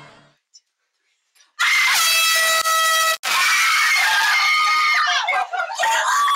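After a moment of quiet, a sudden loud steady blaring tone lasts about a second and a half, then a man screams loudly, the scream falling in pitch and breaking into shorter cries near the end: a sleeper startled awake.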